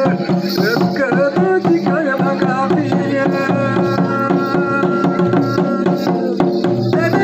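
Santhali folk dance music: double-headed barrel hand drums played in a fast, steady rhythm, with singing over them.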